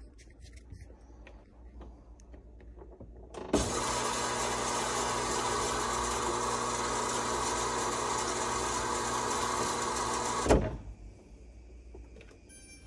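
Refrigerator door water dispenser running for about seven seconds: a steady hum from the water valve with water pouring, starting sharply a few seconds in and cutting off with a thump. This is a test run of the water system to check for leaks.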